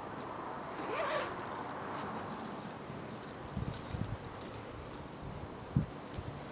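Zipper on a fabric sewing-notions bag being drawn open, then light metallic clinks and taps as metal tools in its tray are handled.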